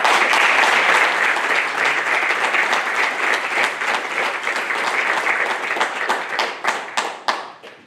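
Audience applauding: dense, steady hand clapping that thins into a few separate claps near the end and then stops.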